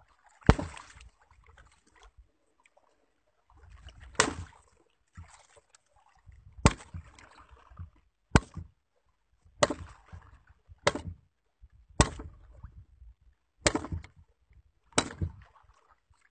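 A pole swung down over the side of a wooden fishing boat, striking sharply nine times, one to two and a half seconds apart, with water sloshing between the strikes.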